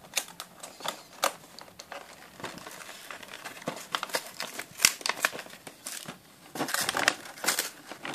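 Clear plastic blister packaging of a toy set crinkling and crackling as hands grip and work at it to open it, in irregular crackles with a denser flurry near the end.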